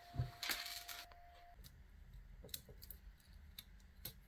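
Sticker-paper card rustling as it is handled, with a soft thump, near the start; then faint, scattered light taps and scratches of a thin wooden stick on the paper.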